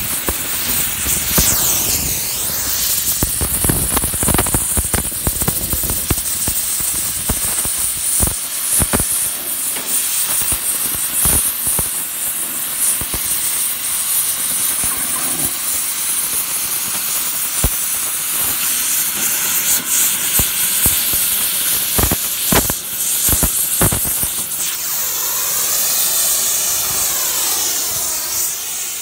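Oxy-fuel cutting torch blowing its oxygen jet through steel plate: a loud, steady hiss with crackling and popping from the sparks and molten slag. Near the end the hiss takes on a wavering, sweeping tone.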